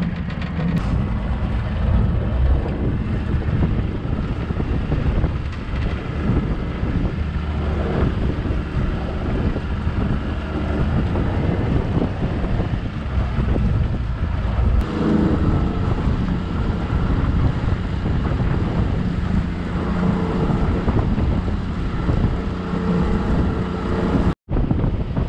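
Small motorboat under way: its outboard motor running, water rushing against the hull and heavy wind buffeting the microphone. The sound cuts out for a moment near the end.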